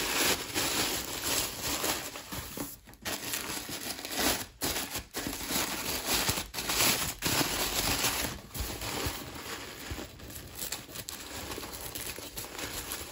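Thin tissue paper crinkling and rustling as it is squeezed and pulled around a rolled canvas, uneven throughout, with a few brief pauses.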